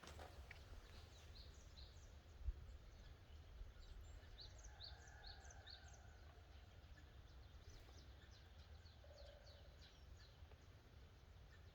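Faint outdoor ambience: small birds chirping in many short, high calls over a steady low rumble, with one soft thump about two and a half seconds in.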